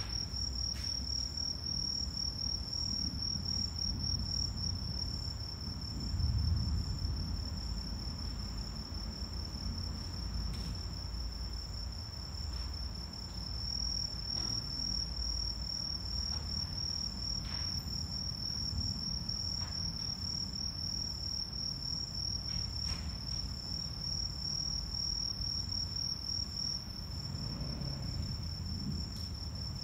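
Crickets trilling in one steady, unbroken high tone, over a low background rumble that swells briefly about six seconds in.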